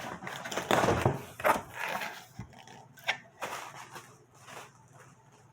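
Packaging being handled: irregular rustling and rubbing of a plastic bag and box contents, with a few sharp clicks, growing quieter in the last couple of seconds.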